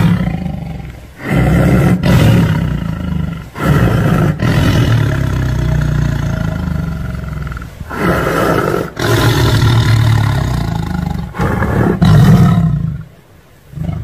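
Tiger roars and growls played as a sound effect: about six long, loud roars in a row with short breaks between them, stopping about a second before the end.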